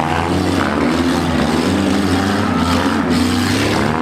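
Several small-car engines running and revving together, their pitch rising and falling as the drivers work the throttles.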